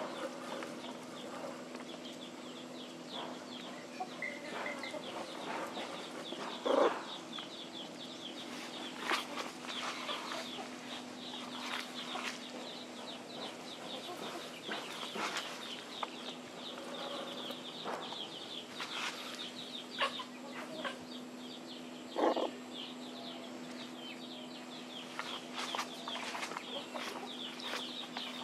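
Chickens clucking, with two louder short calls about 7 and 22 seconds in, over a steady low hum and a dense high chirping.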